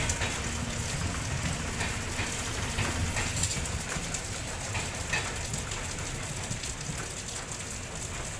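Indian Railways passenger train coaches rolling past, wheels clicking over the rails with a low rumble that eases once the last coach has gone by, about four seconds in. A steady hiss carries on throughout.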